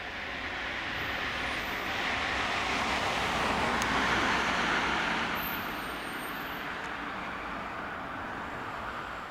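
A passing vehicle: a steady rushing noise that swells to a peak about four seconds in, then fades.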